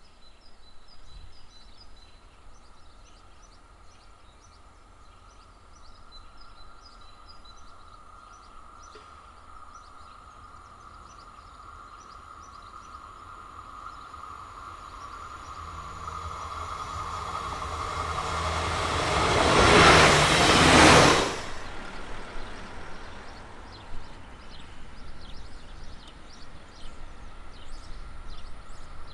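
A train approaching and passing close by at speed. A steady high hum from the rails and a rising rumble build for several seconds, then the pass itself is loud and short, about twenty seconds in, and cuts off suddenly. Birds chirp before and after the train.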